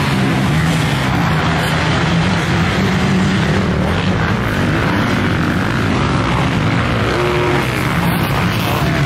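Motocross bikes racing on a dirt track, several engines running at high revs and rising and falling in pitch as riders work the throttle.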